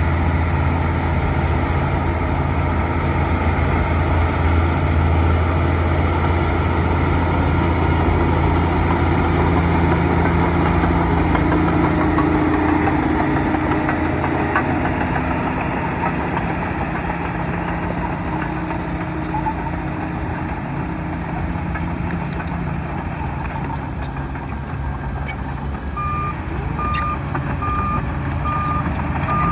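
Bulldozer's diesel engine running steadily, its low note easing about halfway through. Near the end a reversing alarm starts beeping at an even pace, the sign that the dozer is backing up.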